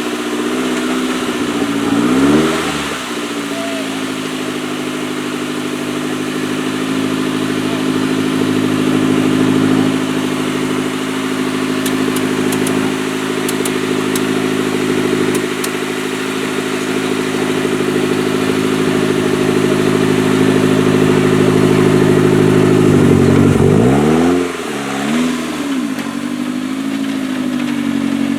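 Off-road 4x4 competition vehicle's engine held at steady high revs for about twenty seconds. The revs dip and rise briefly about two seconds in and again near the end.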